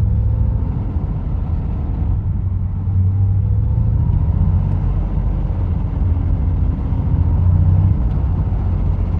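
Ford Mustang S197 with a 4.6 V8 and 2.3 Whipple supercharger being driven through a roundabout: a steady, loud low rumble with a faint whine above it. This is the really loud scraping noise that the owner thinks comes from badly worn rear-axle bearings. Recorded through a mobile phone's microphone.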